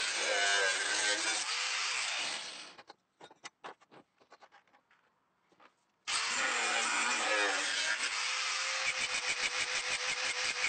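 Power grinding wheel grinding the steel edge of an old woodworking blade, a dense rasping noise. It stops a little under three seconds in, leaving near silence with a few faint clicks, then starts again abruptly about six seconds in with a steady tone through the grinding.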